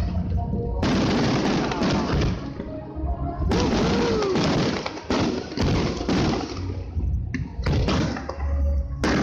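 Aerial fireworks shells bursting: deep booms and dense crackling come in repeated waves a second or two long, one after another, with a heavy boom near the end.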